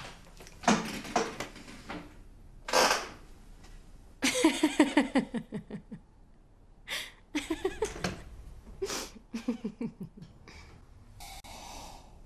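A woman laughing: a few breathy huffs first, then several runs of quick laughs with short pauses between them.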